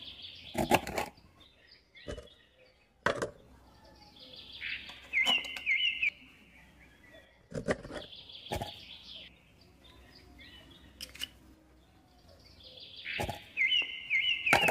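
A bird singing in the background, repeating a short phrase of quick up-and-down notes every several seconds. Several sharp clicks and taps stand out above it, louder than the song.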